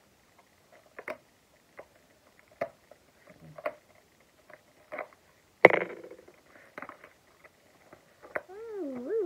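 Small cardboard perfume box being handled and opened by hand: scattered light clicks and taps, with one louder sharp knock a little over halfway through. Near the end comes a brief wavering pitched sound.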